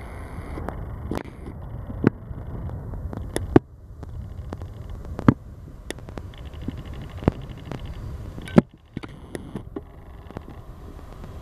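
Low, steady rumble of a Boeing 737 airliner's jet engines moving along the runway, heard with a constant low roar. Several sharp pops cut through it a second or two apart, the loudest about two seconds in, twice in the middle and once more near the end.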